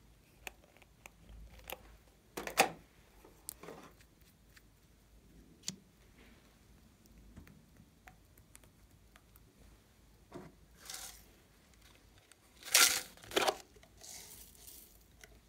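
Hands handling slime add-ins and their plastic containers make scattered taps, crinkles and short tearing rustles. The louder bursts come about two and a half seconds in and near the end, when the contents are tipped out onto the slime.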